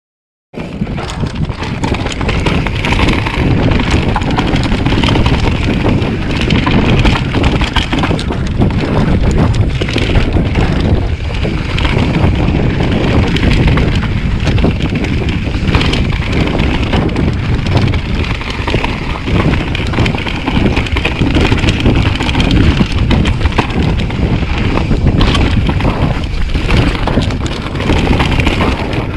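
Mountain bike riding over a dirt singletrack, heard through an action camera's microphone: steady wind buffeting over the rumble and chatter of the tyres on the trail. It starts about half a second in.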